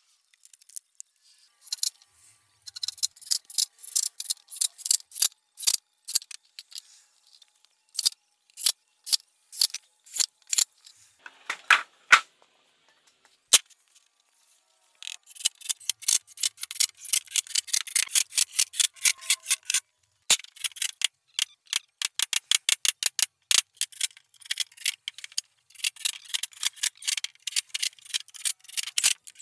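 Rapid runs of sharp, light clicks and taps from hand and power-tool work on plywood, several a second, with a pause of about two seconds near the middle.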